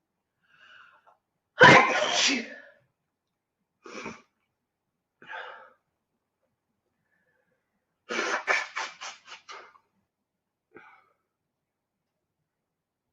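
A young woman sneezing from allergies. A faint breath comes first, then one loud sneeze about a second and a half in and two shorter breathy sounds. About eight seconds in there is a rapid run of six or seven short bursts.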